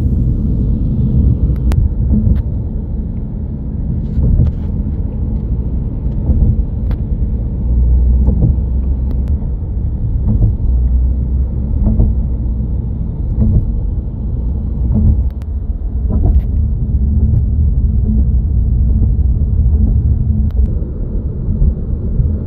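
Road noise heard from inside a moving car: a steady low rumble of tyres, engine and wind, with a few faint ticks.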